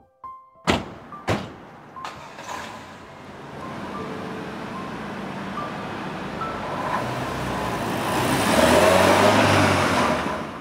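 Two sharp bangs about half a second apart, then an MG F roadster's engine running as the car pulls away, its noise building and loudest near the end.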